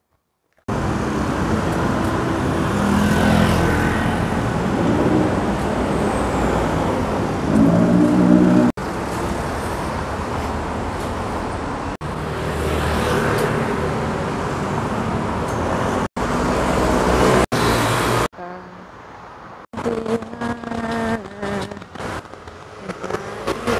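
City street traffic: cars and motor scooters running and passing at a busy intersection. It comes as several short clips joined by abrupt cuts, the sound swelling and fading as vehicles go by, and turns quieter for the last few seconds.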